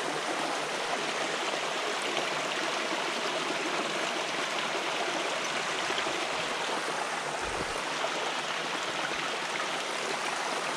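Running water rushing steadily.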